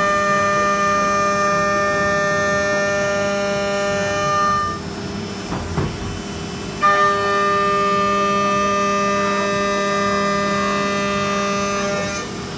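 Haas VF-2SS vertical machining center milling under flood coolant: the cutter in the cut gives a steady whine holding one pitch, over the hiss of coolant spray. The whine comes in two passes of about five seconds each, with a break of about two seconds between them when it drops out, then starts again suddenly.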